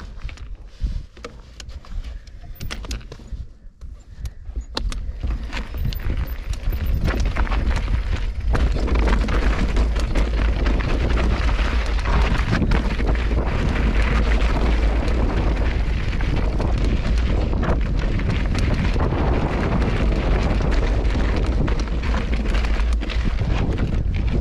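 Wind buffeting an action camera's microphone with tyres rattling over a rocky trail. At first it is quieter, with scattered knocks and clicks from stones. From about eight seconds in, a loud, steady rush of wind noise with deep rumble takes over as the rider picks up speed.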